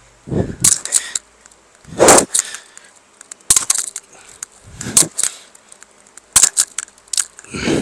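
Hard breaths blown onto a clip-on mic during fast push-ups, one every two seconds or so, four in all. Between them come sharp clicks and light rattles from the mic and pendant necklace knocking as the body moves.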